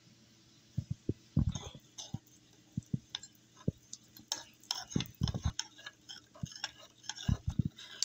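A metal spoon tapping and clinking against a bowl as seasonings are stirred into oil, in a string of irregular knocks and light clinks.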